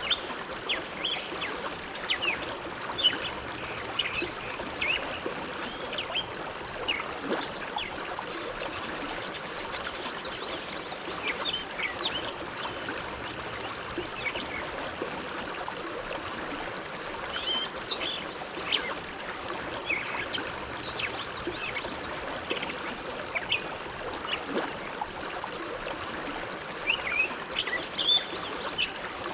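Bow River flowing past the bank: a steady rush of moving water, broken all through by small quick splashes and gurgles.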